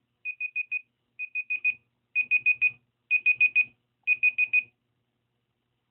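Electronic timer alarm going off: a high steady beep in quick sets of four, about one set a second, stopping about three-quarters of the way through. It signals that the set time is up.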